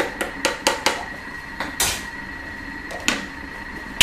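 A metal spoon clinking and scraping against a jar while food is scooped out: a quick run of light taps in the first second, a louder pair a little later, and a few single clinks after that.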